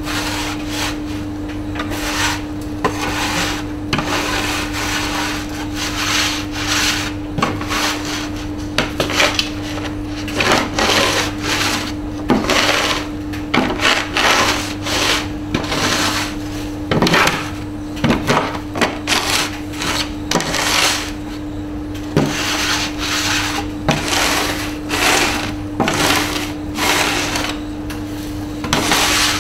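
Electric iron scraping back and forth over a chalk-pastel-covered wooden board, a run of irregular rubbing strokes over a steady low hum.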